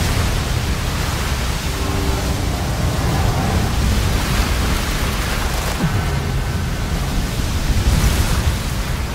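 Steady rushing noise of rough sea water, with heavy waves churning and breaking.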